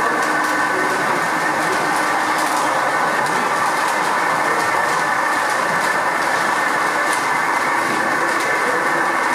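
Scale RC trucks' electronic sound modules playing diesel-engine running sound, a steady dense drone with no breaks.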